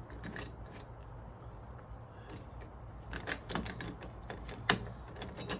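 Small clicks and knocks of a sliding glass door handle being taken off, the loudest a sharp knock about three-quarters of the way in, over a steady high chirring of crickets.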